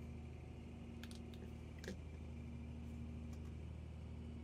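Low, steady drone of the trawler's engine heard inside the wheelhouse while under way, with a few light clicks about one to two seconds in.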